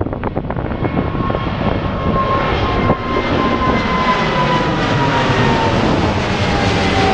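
A United Airlines Boeing 777-200's twin Pratt & Whitney PW4000 turbofans at takeoff thrust as the airliner climbs out overhead. A loud jet roar grows louder, with a whine that slowly falls in pitch as it passes. Wind buffets the microphone at the start.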